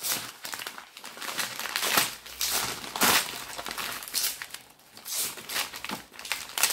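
Christmas wrapping paper crinkling and tearing in irregular bursts as a long present is unwrapped by hand.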